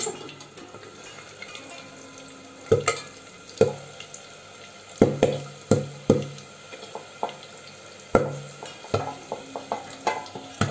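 Soaked black chickpeas (kala chana) bursting as they deep-fry in hot oil under a steel lid: about a dozen sharp pops at irregular intervals over a faint steady sizzle. The popping is the sign that the chickpeas are splitting open and turning crisp.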